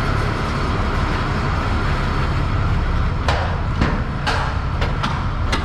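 Tractor diesel engine running steadily while a trailer-load of wheat is tipped out, with four or five sharp knocks in the second half.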